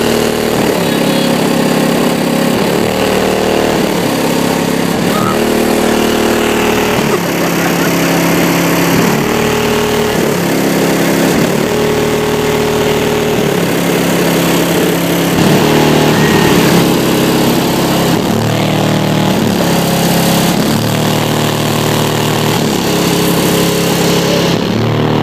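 Competition car-audio system in a Chevrolet Tahoe playing a bass-heavy track at high volume for a Park and Pound SPL measurement. Its subwoofers step through short low notes, changing pitch about once a second.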